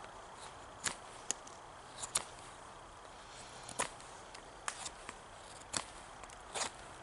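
Knife whittling a wooden spoon blank: short, sharp cutting strokes at irregular intervals, about nine of them, each a quick crisp scrape.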